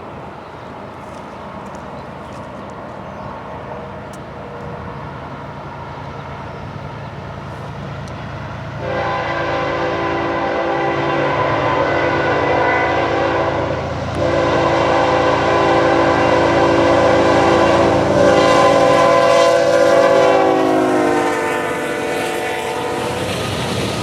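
A diesel freight locomotive approaches with its engine rumbling, then sounds its multi-chime air horn in two long blasts, starting about nine seconds in and again from about fourteen seconds. The horn's pitch drops near the end as the locomotive passes.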